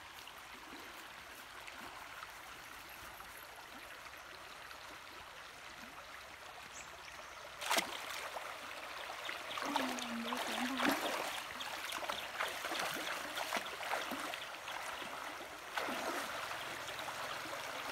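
Shallow river running over stones, a steady rushing hiss that grows louder about eight seconds in. Toward the end, feet splash as someone wades through the water.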